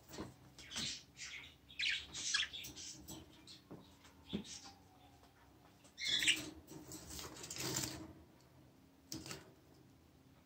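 Budgerigars chirping and squawking in short, scattered bursts, with a couple of louder rustling bursts about six to eight seconds in.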